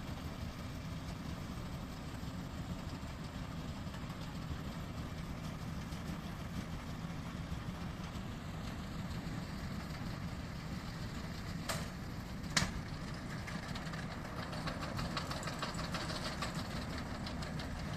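Farm tractor engine running steadily during hay harvesting. Two sharp clicks come about twelve seconds in, and a fast mechanical rattle joins the engine for the last few seconds.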